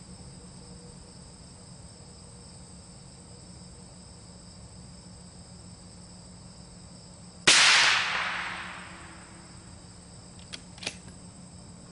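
A single rifle shot about seven and a half seconds in: a full-power supersonic .30-calibre load fired through an OPS Inc. 3rd Model suppressor, a sharp crack with an echo dying away over a second or so. Crickets chirp steadily throughout, and two faint clicks follow the shot.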